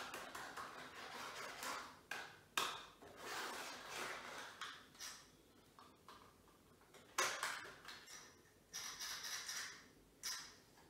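Small electric motor of a Scalextric Mini Cooper slot car whirring in short bursts as the controller trigger is pressed, broken by sharp plastic clicks of the cars being set into the track slot.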